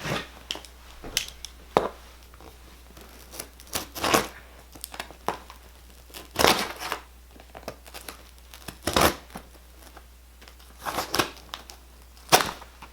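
Packaging of a boxed scanner being pulled and torn open by hand: irregular bursts of crinkling and tearing, one after another, as the box resists opening.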